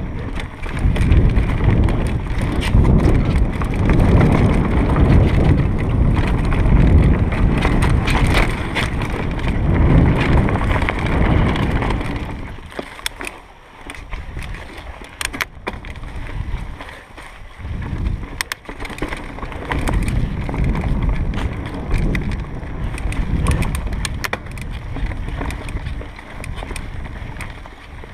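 Mountain bike descending dirt singletrack: wind buffeting the microphone and tyres rolling over the dirt, with frequent clicks and rattles from the bike over bumps and roots. Just under halfway through it quietens for several seconds, then picks up again.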